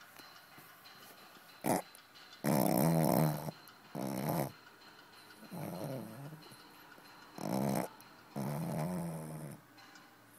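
Dog snoring: six rough snoring breaths with quiet gaps between them, some coming in pairs, the longest lasting about a second.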